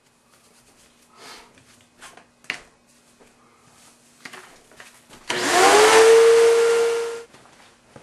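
A vacuum cleaner switched on for about two seconds, its motor tone rising as it spins up, then holding steady until it is switched off, used to clear debris from the furnace burner box. Before it come a few light clicks and knocks of handling.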